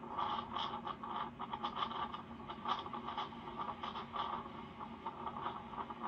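Blizzard wind gusting in irregular, scratchy bursts, heard through a television speaker.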